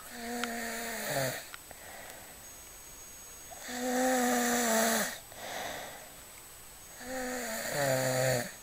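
A sleeping man snoring: three long snores about three and a half seconds apart, each a buzzing tone with breath noise over it, the last dropping lower near its end.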